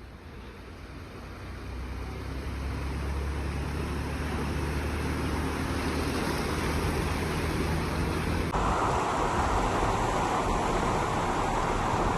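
A motor vehicle's engine running under a steady rushing noise, growing louder over the first few seconds. About two-thirds of the way in the sound changes abruptly to a brighter hiss.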